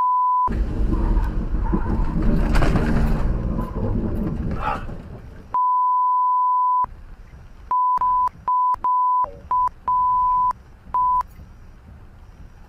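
A steady single-pitch censor bleep, sounded about eight times in short and long stretches, mostly in the second half, each one blanking out the cab audio. Between the bleeps is the car's noisy driving sound in heavy rain, loud at first and quieter later.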